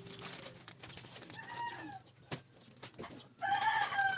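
A chicken calling twice: a fainter drawn-out call about a second and a half in, then a louder one near the end, each sliding slightly down in pitch.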